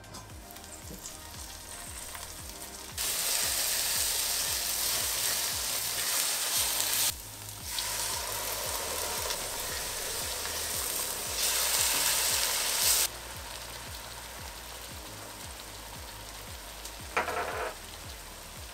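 Chicken korma mixture sizzling in a stainless-steel pot as water is added and it is stirred with a spatula. The sizzle is loud for about ten seconds, with a short break in the middle, then settles to a softer steady sizzle.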